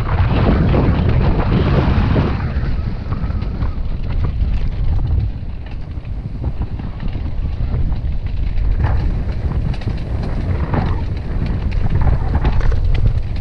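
Wind buffeting the microphone of a camera on a mountain bike moving fast down a dirt singletrack, with rumbling and rattling from the bike over the bumpy trail, heaviest in the first couple of seconds.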